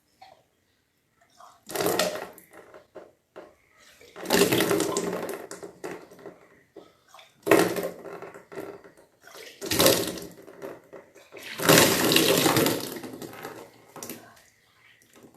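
Water splashing and pouring in about five separate gushes of one to two seconds each, with short quiet gaps between them.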